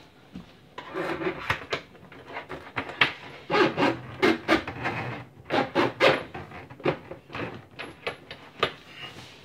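Dishwasher drain hose and braided water supply line being pulled by hand through the hole in the sink cabinet, rubbing and scraping in a run of irregular strokes that starts about a second in.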